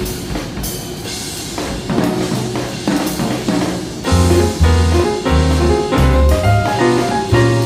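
Instrumental background music in a jazz style, with drum kit and piano; a deep bass line comes in about four seconds in.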